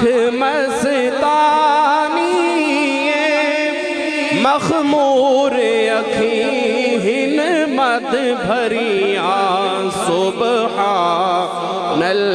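A man's solo voice chanting Islamic devotional verse through a microphone, in long ornamented melodic lines with wavering held notes.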